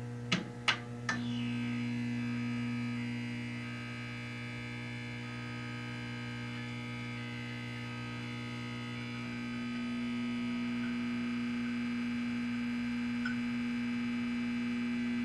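Steady electrical hum of a neon sign buzzing, with a few sharp clicks in the first second or so.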